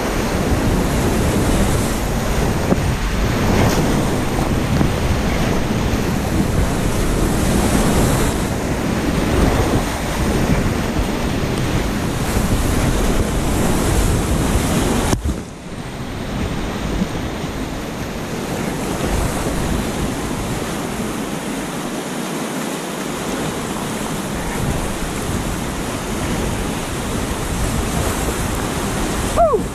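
Whitewater rapids rushing and splashing around a kayak at water level, a loud steady churn of water. About halfway through the sound drops out for a moment and then carries on a little quieter.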